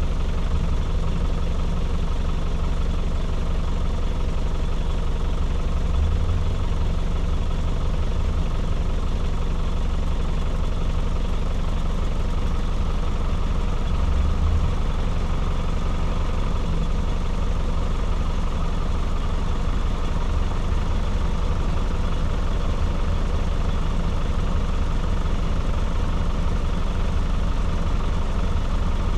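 Off-road vehicle's engine idling steadily while the vehicle stands still.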